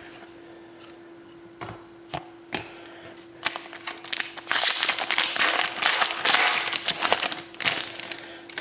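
A few light clicks of cards being handled, then a few seconds of dense crinkling and crackling from a foil trading-card pack wrapper being torn open and crumpled.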